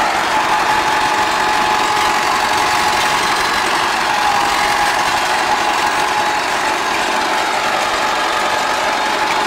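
Diesel engine of a DT-75 crawler tractor, a combine harvester's engine fitted in place of the original, running steadily under load as the tractor crawls through mud. A thin, steady whine sits over the engine note.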